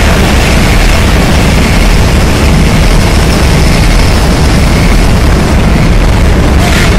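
Noise music: a loud, unbroken wall of dense distorted noise. Near the end it begins to pulse.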